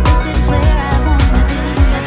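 Loud background music with a steady drum beat and deep bass.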